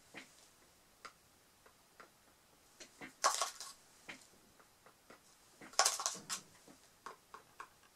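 Faint taps and clicks of a wooden stick and a small plastic cup being handled while alcohol is dabbed onto resin, with two short scratchy rustles about three and six seconds in.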